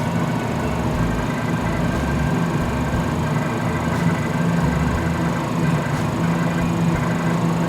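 Turbo balancing machine running with a steady hum and rumble, spinning a turbocharger compressor wheel on a mandrel to measure its imbalance.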